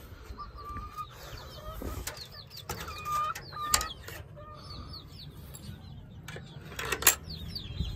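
Domestic hens clucking over many high, short bird chirps, with a couple of sharp knocks, the loudest about seven seconds in.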